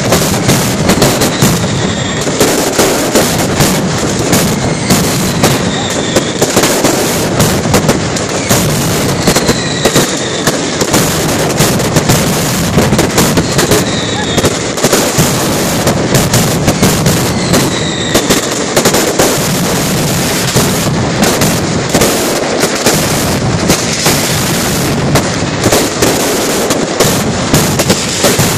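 Mascletà firecracker barrage: a dense, continuous rapid-fire crackle of firecrackers and aerial fireworks bursting, with short falling whistles every few seconds.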